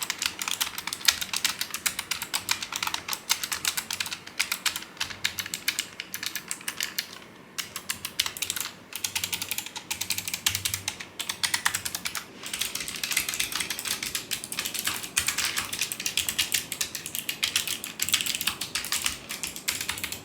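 Typing on a Logitech G915 Lightspeed low-profile mechanical keyboard with clicky GL switches: a fast, steady stream of sharp key clicks, with a couple of brief pauses along the way.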